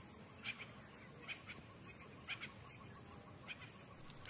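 Faint wildlife ambience: a handful of short, high bird chirps spaced about a second apart over a low steady hiss.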